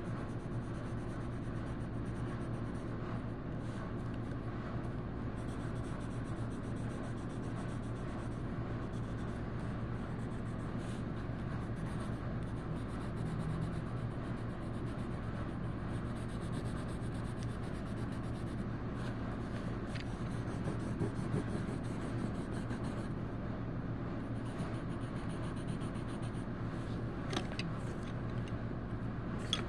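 A colouring tool scratching across paper in stretches of repeated strokes that start and stop, over a steady low hum.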